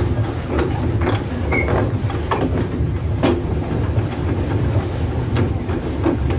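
Swan pedal boat's pedal drive running: a steady low rumble with irregular clicks and knocks from the mechanism and hull.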